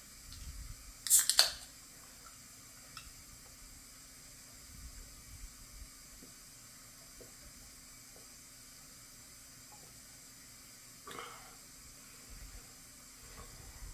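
A can of Bloom Pop prebiotic soda cracked open about a second in: a short sharp pop and hiss of escaping carbonation. Only faint small sounds follow, with a brief soft sound about eleven seconds in.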